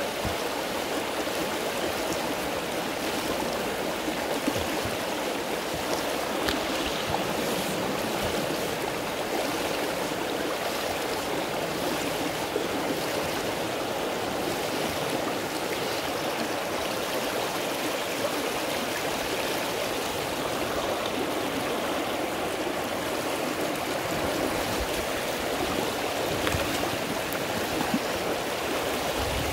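Shallow, clear river running over a gravel riffle: a steady rushing of water.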